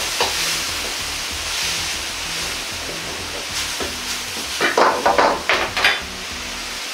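Stock bubbling and sizzling in a wok over a gas flame as it simmers on low heat, with a metal ladle stirring through it. In the second half, a quick run of sharp scrapes and clatters as the ladle works against the wok and the food is tossed.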